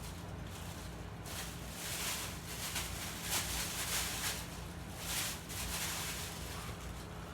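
A sleeping person's heavy breathing: several hissing breaths in and out, about one every second, over a steady low electrical hum.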